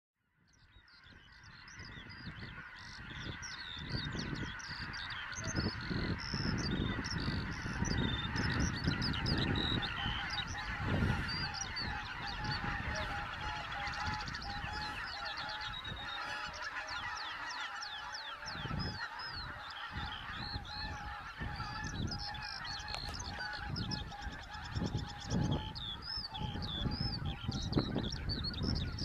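A large flock of wild geese calling, many overlapping honks merging into a continuous clamour. It fades in over the first few seconds.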